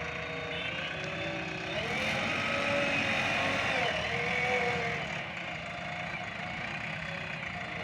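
Heavy diesel engine running, its pitch wavering up and down as the load changes.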